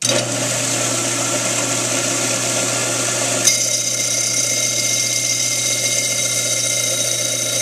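Gryphon C-40 wet diamond bandsaw switched on, its motor starting abruptly and running with a steady hum and a high hiss. About three and a half seconds in there is a sharp tick and the high tones change as the blade starts grinding into the glass bottle, then it carries on steadily.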